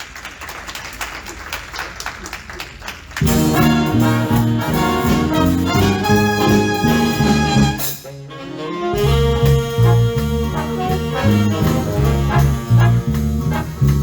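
Big band playing swing. The first three seconds or so are soft, then the full horn section of trumpets, trombones and saxophones comes in loud over a steady bass and rhythm section.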